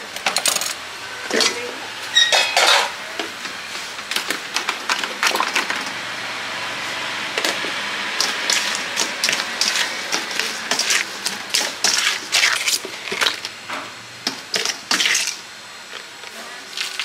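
Metal ladle and knife clinking and scraping against a stainless steel bowl as sour fruit is sliced and tossed with chili sauce: irregular sharp clinks and knocks, with a steadier scraping stir in the middle.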